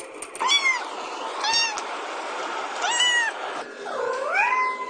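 A recording of a kitten meowing, about four high-pitched cries, the last one longer, dipping and then rising in pitch: a kitten calling for its mother.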